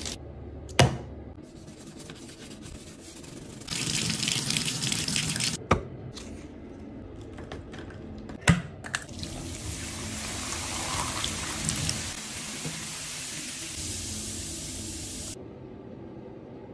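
Water running from a bathtub faucet in stretches while a tub and its drain are cleaned, with three sharp knocks. A long stretch of water noise in the second half cuts off suddenly near the end.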